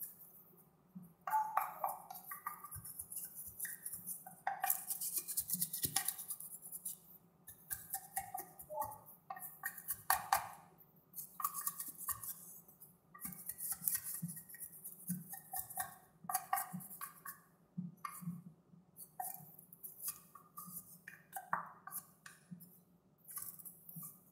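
Bamboo skewer scraping and tapping against the sides of a metal cake pan as it is run around the edge of a baked carrot cake to loosen it from the pan, in short irregular strokes every second or two with a brief ringing of the pan.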